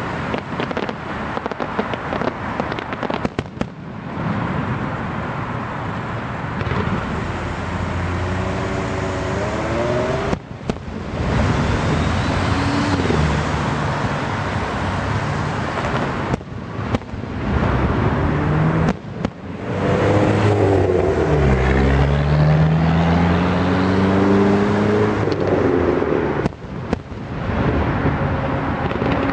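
Fireworks going off in a continuous barrage of bangs and crackle. A low hum rises in pitch twice, about a third of the way in and again about two-thirds in.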